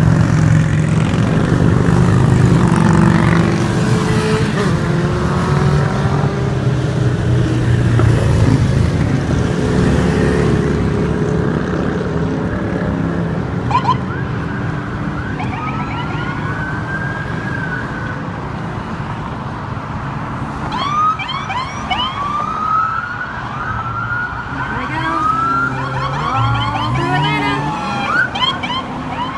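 Police escort motorcycles and cars passing with their engines running steadily; from about halfway through, police sirens give short rising whoops, several overlapping near the end.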